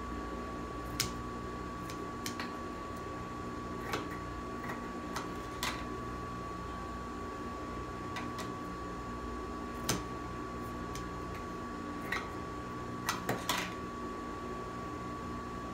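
Steady machine hum with a thin high whine, under scattered sharp clicks and snips of scissors and fabric being handled at a sewing table; the clicks come in a quick cluster near the end.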